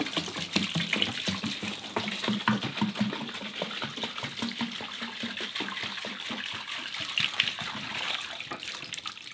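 Paraffin pouring from a plastic jerrycan into a flexible plastic tub of greasy drill-press parts: a continuous gushing pour with irregular gulps, tailing off near the end.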